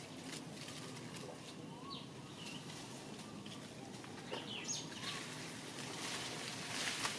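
A few short, scattered bird chirps over a steady outdoor background hiss, with a handful of faint clicks.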